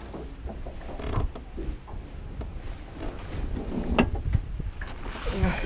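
Creaking and scattered clicks from the jon boat and fishing tackle while a hooked bass is worked in on a long crappie pole, with one sharp click about four seconds in. Wind rumbles on the microphone underneath.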